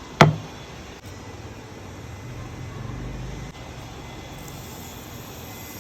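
A single sharp knock, then a steady low hum.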